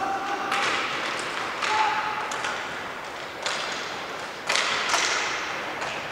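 Inline hockey play in a large hall: a series of sharp knocks and thuds from sticks, puck and boards, some with a brief ringing tone, about every second or so, with a few short shouts from players.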